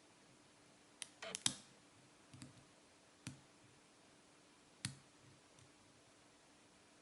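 Faint, sparse clicks of a lock pick and tension wrench working the pin stack of a brass EM-D-KAY padlock: a quick cluster of clicks about a second in, then single clicks spaced a second or more apart.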